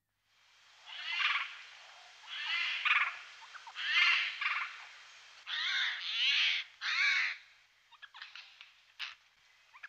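Eurasian jays giving a run of harsh screeching calls, about six loud ones over the first seven seconds, then fainter, shorter calls near the end.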